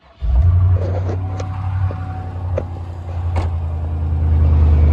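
GMC pickup's 6.0-litre Vortec V8 cold-starting: it fires almost instantly, a fraction of a second in, then runs at a steady idle.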